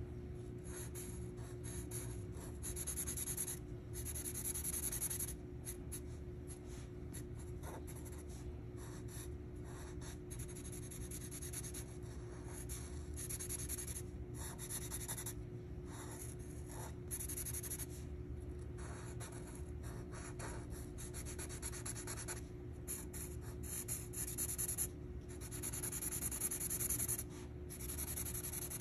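Sharpie fine-point marker scribbling on paper in runs of quick back-and-forth colouring strokes, over a steady low hum.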